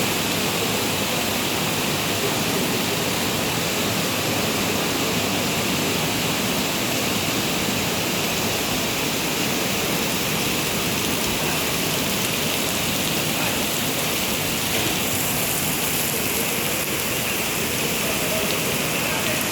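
Rain falling steadily, an even wash of water noise with no letup.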